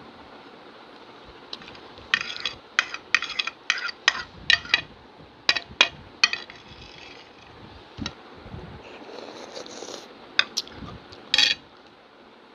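Metal spoon scraping and clinking against a ceramic plate: a quick run of sharp strokes for several seconds, then a few more near the end, one of them loud.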